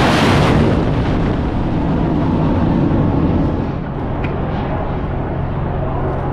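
Harpoon anti-ship missile launched from a deck canister: the rocket booster's roar, very loud for about the first three seconds and then fading as the missile flies off, over a steady low hum.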